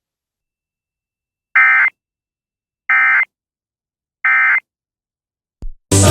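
Emergency Alert System end-of-message signal: three short bursts of warbling SAME digital data tones, about a second and a half apart, marking the end of the alert. Near the end, a faint click and then a brief, loud burst.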